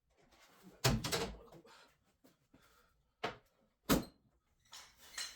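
A few separate knocks and clunks of things being handled during clean-up. The loudest comes about a second in with a short rattle after it, then two sharp ones a little after three seconds and near four seconds, and faint taps near the end.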